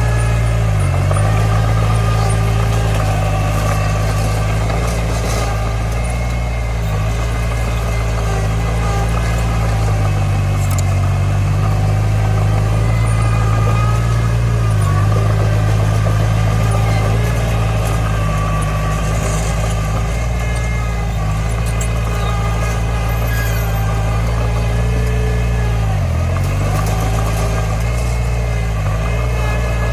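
Diesel engine of a Komatsu D20 bulldozer running steadily, its pitch dipping briefly and recovering a few times, about a second in and again near the end, as it takes load.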